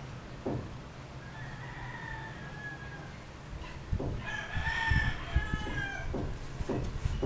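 West Highland white terrier puppy whining in high-pitched squeals: a faint one about a second and a half in, then a louder, longer one from about four seconds in, slightly falling in pitch. Blanket rustling and soft bumps from the puppy wriggling lie under them.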